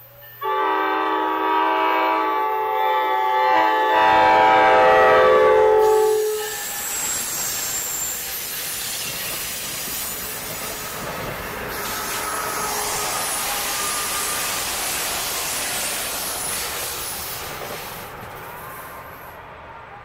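A MARC commuter train's horn sounds one long chord of about five and a half seconds, then the train's bilevel passenger coaches pass close by with a steady rumble and wheel-on-rail noise that fades near the end.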